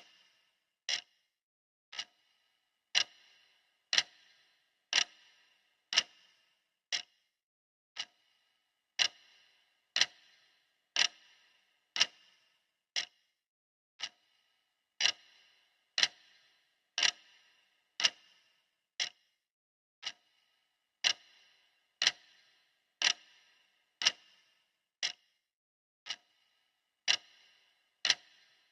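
Clock ticking once a second, steady and even, each tick a sharp click with a short metallic ring.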